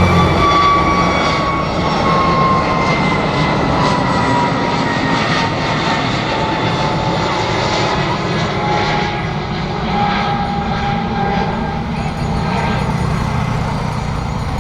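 Jet airliner's engines passing by: a steady roar with a whine that slowly falls in pitch as the aircraft goes past, easing slightly toward the end.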